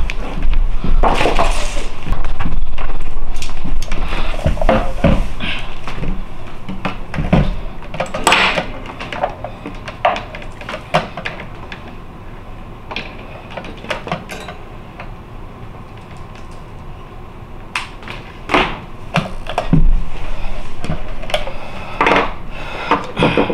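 Handling noise: scattered knocks, clicks and clatter as objects are moved about and a homemade 12-volt power supply box is set on a wooden table and its cables handled. A heavier rumbling stretch comes in the first few seconds, then sparser knocks.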